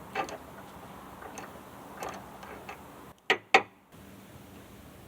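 Scattered faint ticks, then two sharp clicks a quarter second apart about three seconds in.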